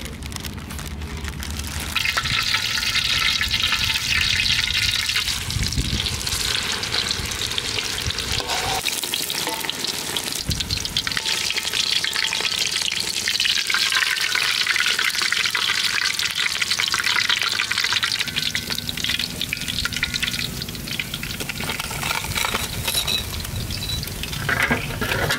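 Hot oil sizzling steadily as a rice-coated rat deep-fries in a wok, the crackle coming up about two seconds in.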